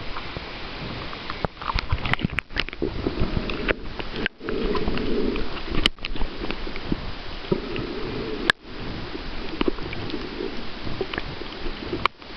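Water sloshing and splashing around a camera at the surface while snorkelling, giving way to muffled underwater noise heard through the submerged camera, with many scattered sharp clicks. The sound cuts out briefly a few times.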